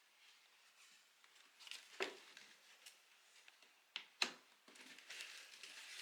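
Faint handling sounds of small parts: a few light clicks and knocks, the sharpest just after four seconds in, followed by soft rustling.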